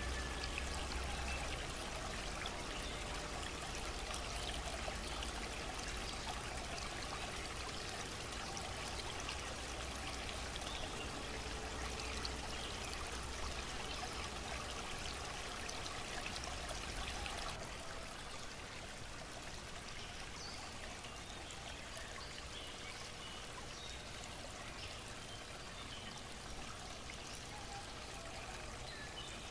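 Steady running water of a small stream, trickling and splashing, dropping a little in level about 17 seconds in.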